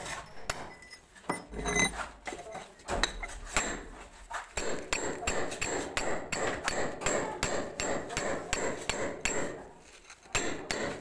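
Hand hammer striking a steel cold chisel to chip a hole in a plastered masonry wall: sharp metallic strikes with a slight ring, irregular at first, then a steady run of about three blows a second. The blows stop briefly near the end, then resume.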